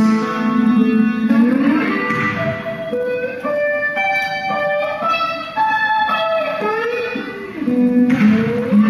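Live guitar music: a melody of single long-held notes, several sliding in pitch, over a sustained low note.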